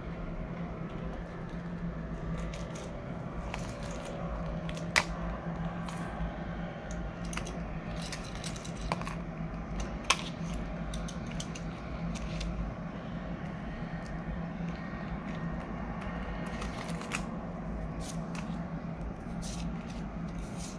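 Hands handling a plastic cash-binder pouch and banknotes: soft rustling with scattered sharp clicks, the two loudest about five and ten seconds in, over a steady low hum.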